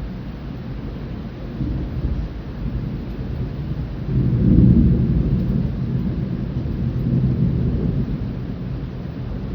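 Rolling thunder rumbling over steady rain; the rumble swells about four seconds in, stays strong for a few seconds, then fades near the end.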